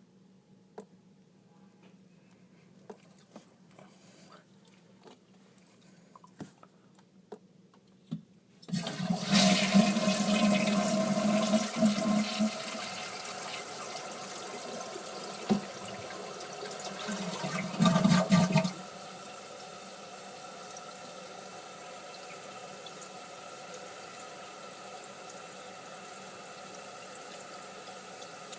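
A few faint clicks, then a toilet flushes about nine seconds in: a loud rush of water for about ten seconds, then the tank refilling with a steady hiss.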